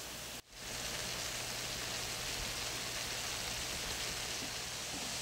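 Ground beef, onion and mixed vegetables sizzling steadily in a skillet, an even hiss. The sound drops out for a moment about half a second in.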